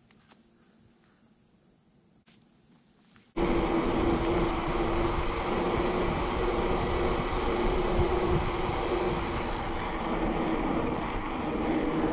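About three seconds of near quiet, then a sudden cut to loud, steady wind rush on the microphone of a bike-mounted camera riding down a paved lane, with a steady hum underneath.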